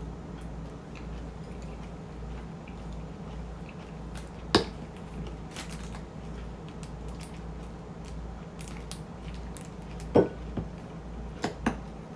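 Close-up eating sounds of shrimp chili and rice: soft, wet chewing with many faint clicks. A few sharp knocks stand out, one about halfway in and a cluster near the end.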